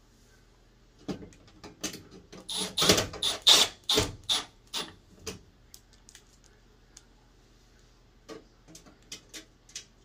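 Sharp clicks and rattles of screws and a cordless screwdriver being handled against a washing machine's metal back panel as the panel screws are put back in. A quick run of clicks comes about a second in and is loudest around three to four seconds in, with a few scattered clicks near the end.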